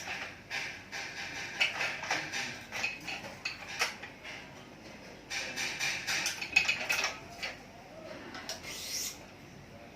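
Racket string being pulled and rubbing through the frame on a manual stringing machine, in irregular swishes with sharp clicks and rattles from the machine's clamps and tensioner.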